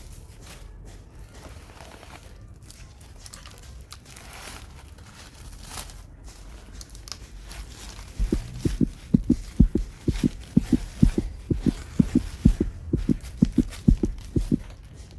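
Heartbeat sound effect: a fast run of low thumps in lub-dub pairs starting about eight seconds in, after faint rustling of plant wrapping.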